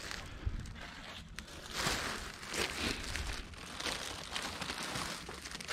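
Plastic grocery bags crinkling and rustling as they are handled and rummaged through, in a run of irregular rustles.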